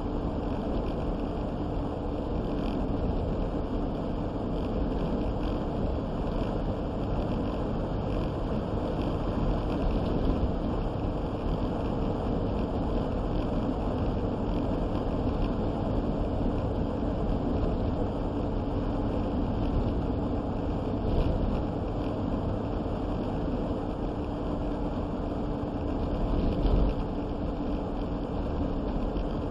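Steady engine and road noise inside a moving vehicle's cabin, with a constant low hum and two brief low bumps in the second half.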